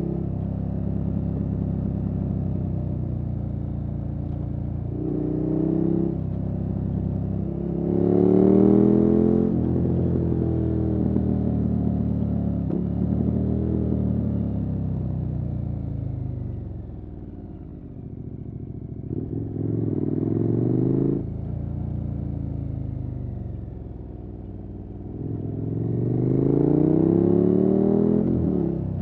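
KTM 1290 Super Adventure S's V-twin engine through an aftermarket Wings exhaust, pulling hard in repeated rising-pitch accelerations (about 5, 8, 19 and 26 seconds in). Between the pulls the throttle backs off and the engine goes quieter.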